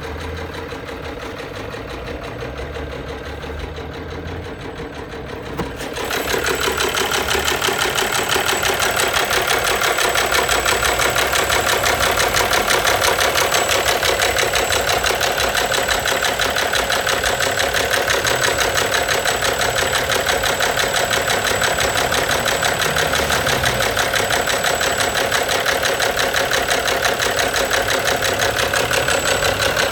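Car engine running with an abnormal knock, a fast, even rhythmic knocking. About six seconds in it gets clearly louder and stays so.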